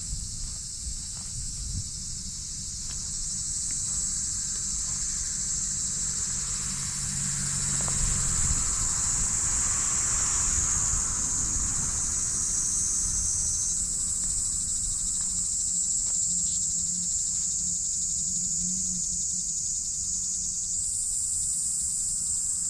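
Steady high-pitched chorus of insects, its pitch stepping a little twice. About a third of the way in, a passing vehicle swells and fades.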